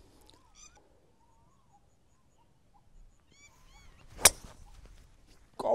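A golf driver strikes the ball once on a tee shot, a single sharp crack about four seconds in. Faint bird chirps come before it.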